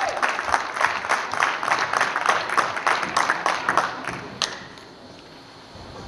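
Audience applauding, the clapping thinning out and dying away about four seconds in, followed by a single sharp click.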